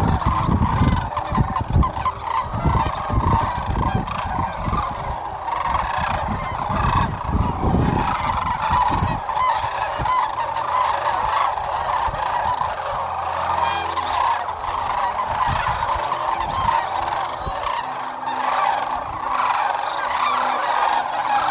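Dense, continuous chorus of rolling, rattling calls from a large flock of sandhill cranes. A low gusty rumble runs under the calls through the first half.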